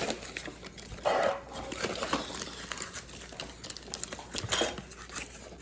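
Packaging of a 2x2 puzzle cube being handled and opened: irregular crinkling and rustling with light clicks and scrapes, loudest about a second in.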